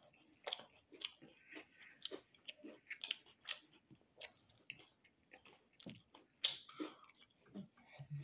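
A person chewing mouthfuls of sauced boneless chicken wings close to the microphone: irregular short wet mouth clicks, a couple each second, the loudest about six and a half seconds in.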